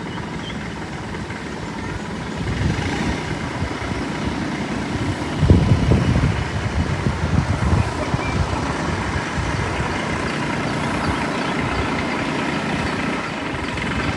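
An engine running steadily under a noisy rumble, with the low rumble surging louder about five seconds in.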